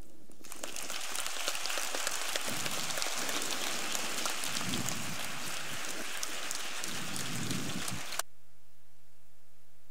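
Audience applauding: a dense patter of many hands clapping that starts about half a second in and cuts off suddenly near the end.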